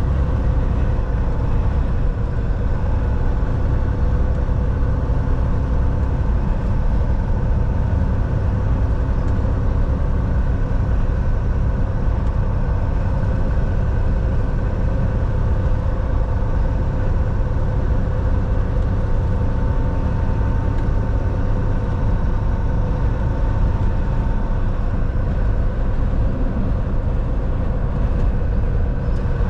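Volvo semi truck's diesel engine and tyres giving a steady low drone while driving down the road, with a few faint held tones above it and no change in speed.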